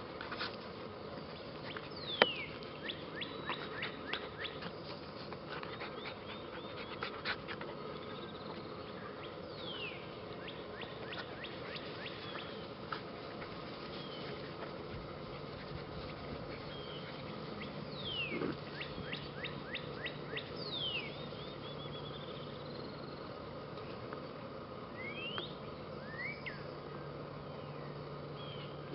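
Wild birds chirping and trilling: short high chirps that sweep down in pitch, and quick runs of rapid notes, over a steady outdoor hiss. A low steady hum comes in partway through.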